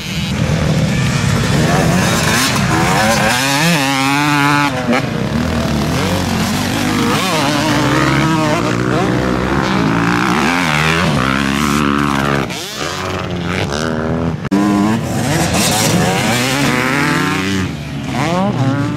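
Motor vehicle engines revving and going by, their pitch rising and falling again and again, with short drops in loudness twice in the second half.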